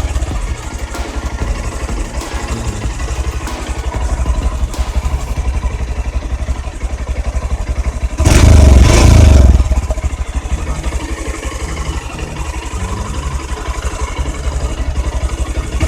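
Honda X-Blade BS6 motorcycle's single-cylinder engine idling with a steady, fast putter through its dual-barrel exhaust. It is revved once for about a second and a half, about eight seconds in, then settles back to idle.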